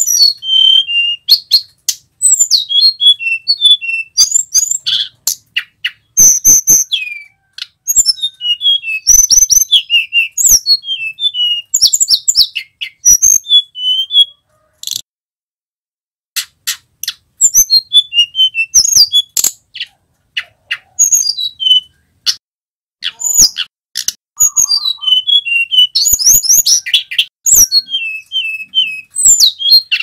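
Male hill blue flycatcher (tledekan gunung, sulingan) singing vigorously. Phrase after phrase of fast, high, fluttering whistles are mixed with sharp clicks, with a short pause about halfway through.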